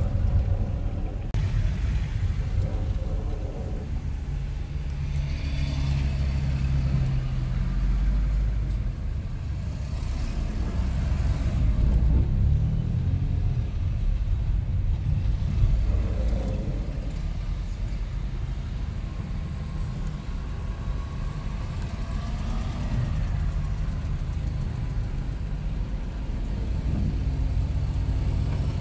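A car being driven on the road: the engine and tyres make a steady low rumble that swells and eases a little.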